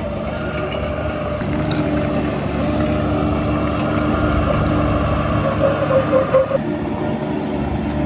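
Heavy earthmoving machinery running: a diesel engine working steadily, with a brief louder, wavering high tone about five and a half seconds in.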